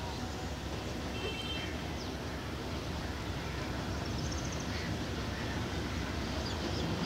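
Low rumble of an approaching train's diesel locomotive, far off and growing slowly louder, with a few short bird chirps about a second in.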